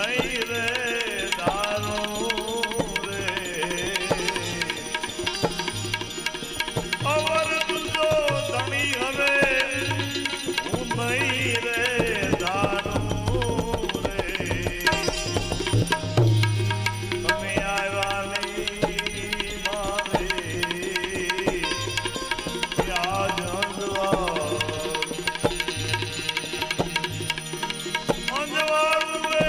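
Devotional bhajan music: a tabla keeps a steady beat under a melody that rises and falls.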